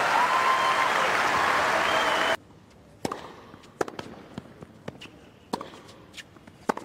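Stadium crowd applauding and cheering, with a few whistles, cut off abruptly about two seconds in. A tennis rally follows: sharp racket strikes and ball bounces on a hard court, roughly one a second.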